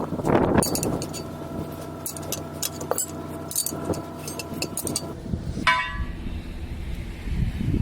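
Light metallic clinks and taps of tools and lug nuts during a tire change, over a steady hum that stops about five seconds in.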